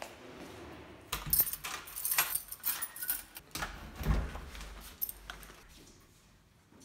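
Keys jangling and a key working an apartment front-door lock, with a run of metallic clicks from the lock and handle. A dull thump about four seconds in as the door opens.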